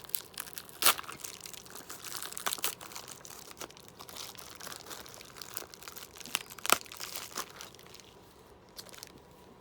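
Packaging being crinkled and torn open by hand: irregular crackling with two sharp, louder snaps, one about a second in and one near seven seconds, dying down near the end.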